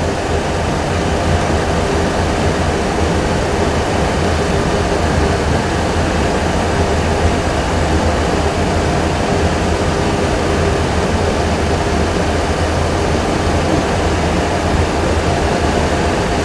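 Steady flight-deck noise in a Boeing 737 Classic full flight simulator: the simulated jet engine and airflow sound of an airliner in flight, with a strong low hum, growing a little louder in the first second or two.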